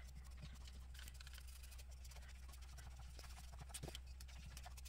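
Faint dabs and soft taps of a small paintbrush working decoupage medium onto a paper napkin on a little birdhouse, a few light ticks standing out over a steady low hum.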